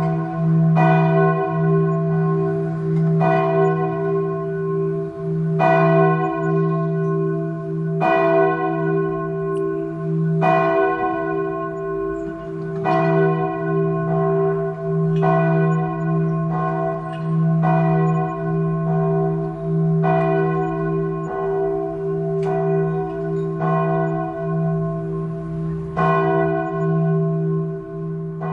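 Church bell tolling, struck at a slow, even pace with the ring of each stroke carrying on under the next, over a steady low hum.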